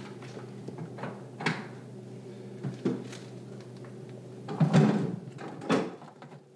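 Short clunks and knocks of hands working on an old Deutz D15 tractor's engine compartment, the loudest cluster about two-thirds of the way in, over a steady low hum.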